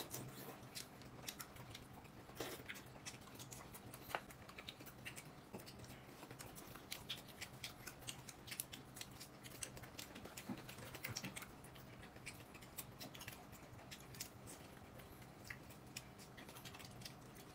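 Faint eating sounds: small, irregular clicks and taps of chopsticks and tableware.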